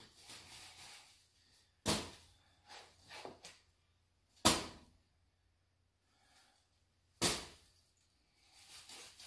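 Wire-shelving basket full of burnt copper wire being knocked and rolled on a concrete floor to shake the ash out. Three sharp knocks about two and a half seconds apart, with softer rattling between.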